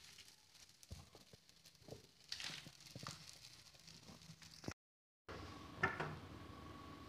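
Soft, scattered taps and rustles of kitchen handling, then a sudden half-second gap. After it, hands working a round of wheat dough on a floured wooden board give a sharp tap and soft knocks over a faint steady hum.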